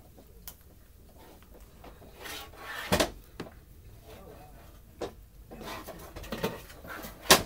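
A few sharp knocks and clicks with soft rustling between them, the loudest knock near the end.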